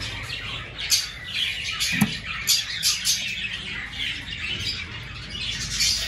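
Cockatiels in an aviary chirping and squawking, many short calls overlapping, with a single knock about two seconds in.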